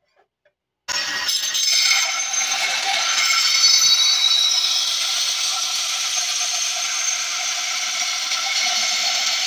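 Bench belt sander grinding the rusty steel blade of a meat cleaver pressed against its moving belt: a steady grinding noise that starts abruptly about a second in.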